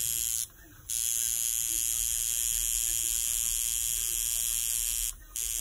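A small handheld electric motor tool buzzing steadily. It cuts out about half a second in for half a second, then runs on and stops briefly again near the end.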